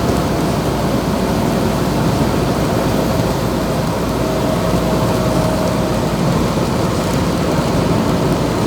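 Heavy rain together with a truck running on a wet road: a dense, even rushing noise. A thin steady whine joins about four seconds in.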